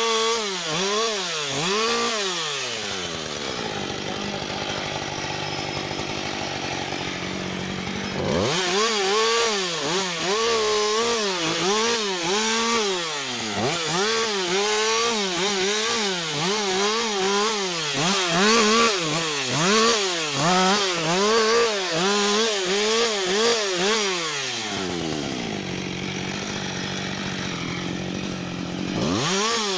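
Husqvarna 560XP two-stroke chainsaw limbing a felled conifer, its engine revving up and down in quick bursts as each branch is cut. About three seconds in it drops to idle for several seconds, then revs and cuts again in rapid bursts until about twenty-five seconds in. It idles once more and revs up again at the very end.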